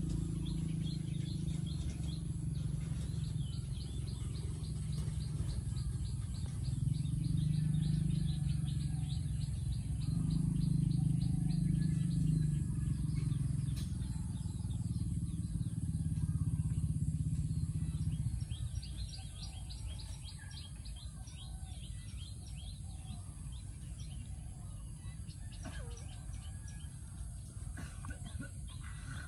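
Small birds chirping and trilling in rapid high runs, over a low steady drone that stops about two-thirds of the way through.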